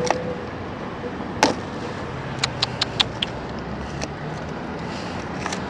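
Sharp metal clicks of motorcycle keys on a ring and the lock they are worked in by hand: one click about a second and a half in, then five quick clicks about a fifth of a second apart, over steady street traffic noise.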